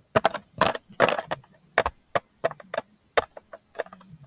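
A water bottle tapped with paper clips fitted over the fingernails: a quick, irregular run of sharp clicks, with a few longer scratchy bursts in the first second or so.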